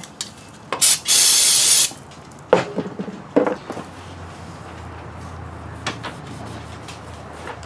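A burst of aerosol spray lasting about a second, cleaner sprayed onto a lawn tractor's bare front axle spindle. It is followed by a couple of knocks and a rag rubbing as the shaft is wiped down.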